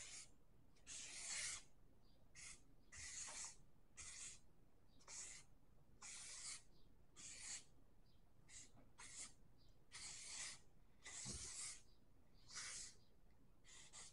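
Marker drawing on paper: a faint, irregular series of short scratchy strokes, each under a second long, coming about once a second as a graffiti tag is drawn.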